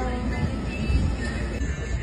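Background music with a steady low rumble of street noise beneath it.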